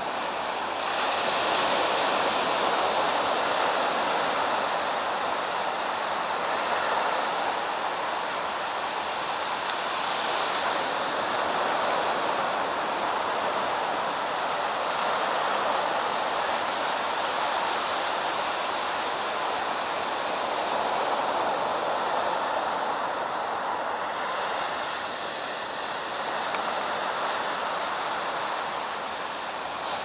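Steady rush of surf washing on the shore, swelling and easing slowly.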